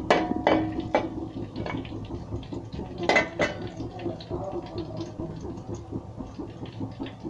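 Whole spices (cinnamon, cloves, cardamom) sizzling in a little hot oil in a large aluminium pot, with a metal ladle scraping and clinking against the pot about five times, mostly in the first second and around three seconds in.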